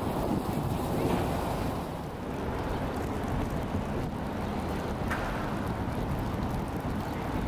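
Steady rushing of water sheeting over the stepped edges of a shallow fountain pool, with wind rumbling on the microphone.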